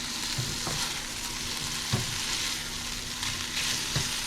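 Chopped steak and onions sizzling steadily in an oiled frying pan, with a few light knocks of a utensil against the pan as they are moved around.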